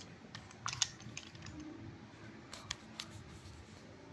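A few light, sharp clicks and taps of small objects being handled on a workbench: a quick cluster about a second in, then two or three more about three seconds in.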